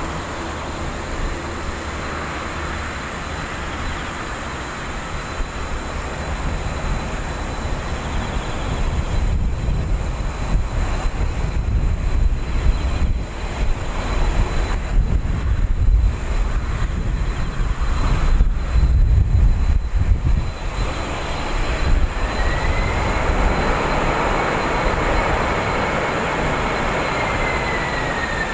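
Boeing 767-300 twin-jet airliner landing. A steady jet whine on approach gives way, from about a third of the way in, to a deep rumbling roar for roughly twelve seconds as it rolls out on the runway, typical of reverse thrust. Then the engines' whine rises and falls in pitch near the end as the slowing jet passes.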